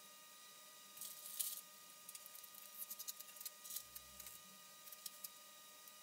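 Faint crinkling and rustling of paper backing and wrapper as adhesive strips are peeled and pressed onto skin, in short bursts about a second in, again from about two to three and a half seconds, and once near the end.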